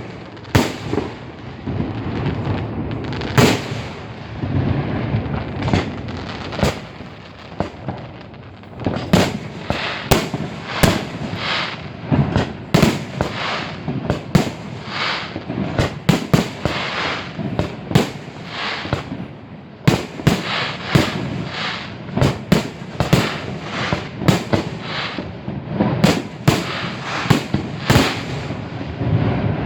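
Fireworks display: aerial shells bursting in a long series of sharp bangs with a rumble between them. The bangs come faster and closer together from about nine seconds in.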